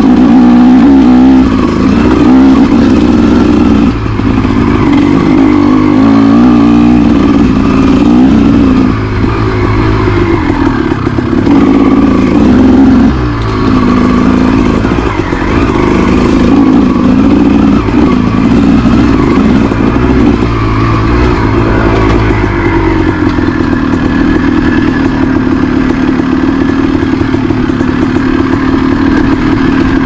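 Honda CR250R two-stroke single-cylinder dirt bike engine under way, loud and revving up and down as the throttle is worked. There are brief throttle-offs about four and thirteen seconds in, and it holds a steadier pitch over the last several seconds.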